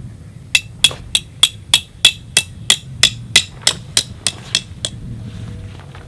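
A metal tent stake being hammered into the ground to anchor a guy line: about fifteen sharp, ringing strikes at roughly three a second, the last few lighter.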